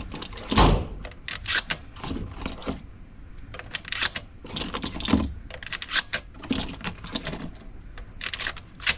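Rapid clicking and clacking of shotgun shells being handled and pushed into a Beretta 1301 Tactical's tube magazine, with two heavier thunks about a second in and about five seconds in.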